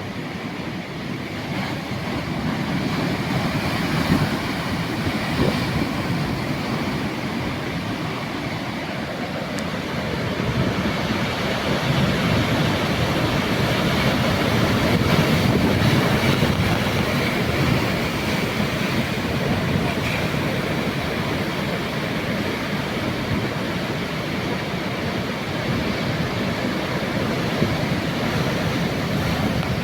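Sea waves surging and washing ashore in a continuous rush that swells louder in the middle and then eases.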